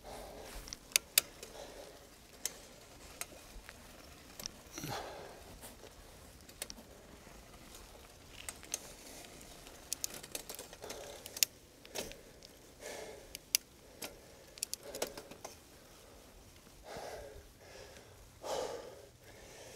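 A cyclist breathing hard while pedalling up a steep road climb, with sharp irregular clicks and rattles from the bicycle.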